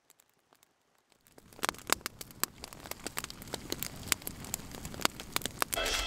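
Newly lit kindling fire of split sticks crackling as it catches, with sharp snaps that start about a second in and grow denser and louder.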